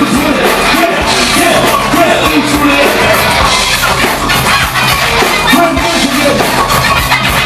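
Loud live band music at a concert, with a pounding drum beat and a voice singing and shouting over it.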